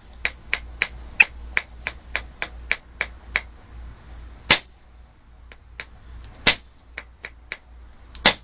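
Moose antler billet clicking lightly against a stone preform about three times a second as the blow is lined up, then three harder strikes about two seconds apart. The strikes do not drive off the overshot flake, which the knapper puts down to the billet being too light.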